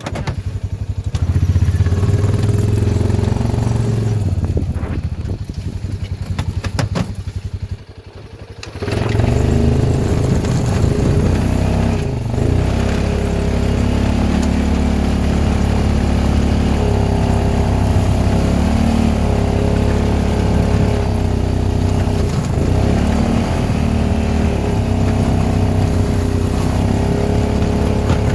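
Honda Pioneer 700 UTV's single-cylinder engine working under load as it pushes a plow blade through deep snow. It eases off for a few seconds about a third of the way in, then picks up again and runs steadily.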